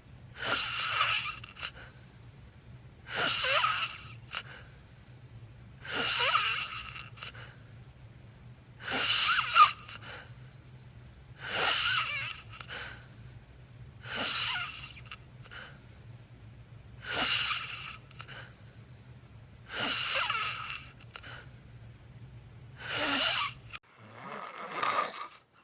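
A sleeping person's heavy, hissing breaths, about ten in a steady rhythm roughly every three seconds. A steady low hum runs beneath and cuts off about a second and a half before the end.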